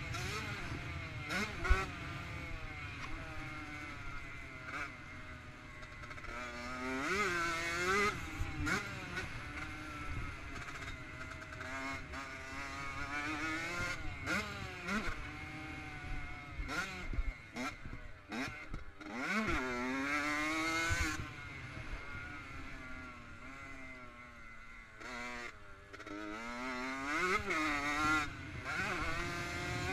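Honda CR85R's 85cc two-stroke single-cylinder engine being ridden hard, its pitch climbing and dropping back again and again as the throttle is worked. There are scattered knocks, with a sharp one about two seconds in.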